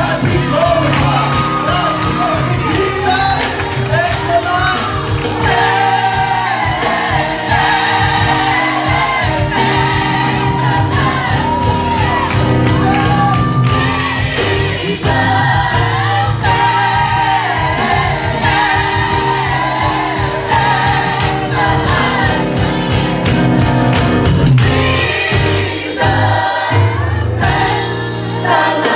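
Gospel worship music: several voices singing over a band with sustained bass notes and a steady beat.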